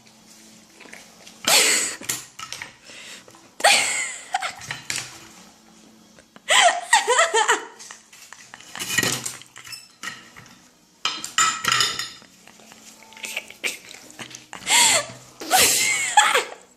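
Plates and cutlery clattering and clinking in irregular bursts, as a dog eats off dishes on a table, with people laughing now and then.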